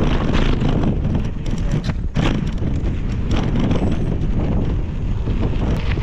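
Wind buffeting the microphone as a mountain bike descends a dirt singletrack at speed, with the tyres running over dirt and irregular rattling knocks from the bike.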